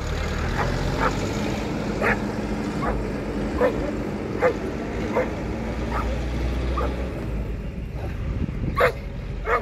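A dog barking repeatedly, about a dozen short sharp barks roughly one a second, the loudest near the end, over a steady low rumble.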